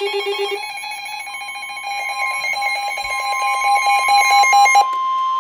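Emergency alert tones on a weather radio. A fast-pulsing electronic alarm beep stops under a second in. About a second in, a steady single-pitch alert tone near 1 kHz starts: the NOAA Weather Radio warning alarm tone that comes before a warning message. A second fast-pulsing beep sounds over it and cuts off near the end.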